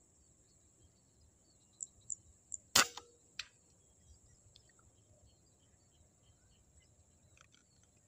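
A single shot from a Bocap Marauder PCP air rifle about three seconds in: one sharp crack, with a fainter click about half a second later and a few faint ticks just before. A steady high-pitched insect drone underneath.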